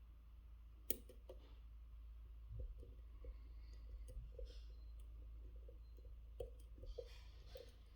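Faint metallic clicks and ticks of a lock pick and tension tool working the serrated pin stacks of an MTL Interactive Classic 5-pin lock, with one sharper click a little under a second in.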